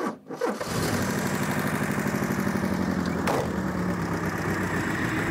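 Carburetted car engine starting about half a second in and settling into a steady idle, running with paint remover poured in as an engine flush. A short knock sounds about three seconds in.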